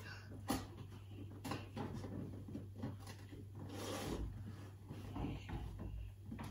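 Clothes rustling, with a few light clicks and knocks, as dry laundry is pulled off a washing line and gathered up in the arms.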